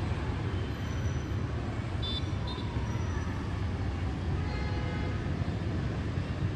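Steady hum of distant city traffic, motorbikes and cars on wet streets, heard from high above, with two brief high horn toots about two seconds in.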